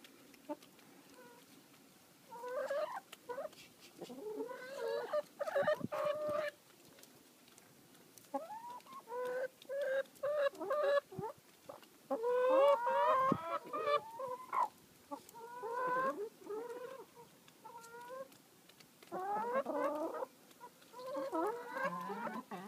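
Several brown hens clucking and calling in repeated bouts, crowded close while they peck grain.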